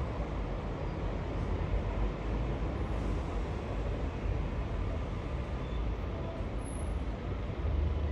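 Airbus A380 jet airliner passing overhead, its four Rolls-Royce Trent 900 engines giving a steady, deep rumble with an even rushing hiss above it.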